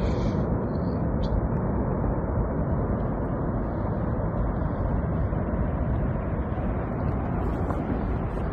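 Steady low rumble of a snow avalanche sweeping down a mountainside, its powder cloud spreading across the valley.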